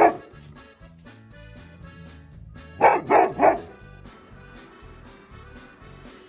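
A dog barks once right at the start, then three times in quick succession about three seconds in, over quiet background music.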